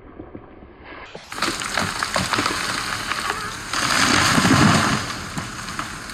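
A felled tree coming down: branches cracking and snapping as it falls, then a heavy rushing crash with a deep thud about four seconds in as it lands, easing off to a low hiss.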